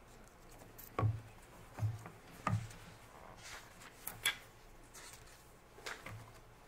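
Handling noise close to a microphone: about five soft knocks and bumps a second or two apart, with some faint rubbing, as a book is picked up and handled before a reading.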